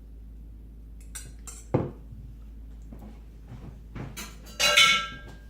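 Kitchen dishes and utensils being handled: a sharp knock a little under two seconds in, then a louder clatter with a brief ringing clink near the end.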